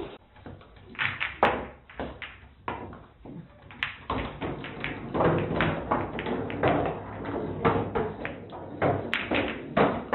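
A run of irregular taps, thumps and knocks on hard surfaces, sparse in the first few seconds and then coming thick and fast.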